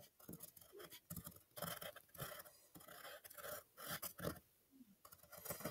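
Faint pencil scratching on paper while drawing lines: a run of short, irregular strokes.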